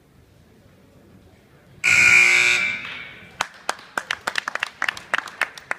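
Scoreboard buzzer sounds once, loud and for under a second, echoing through the gym to mark the end of a wrestling period. A few people then clap unevenly.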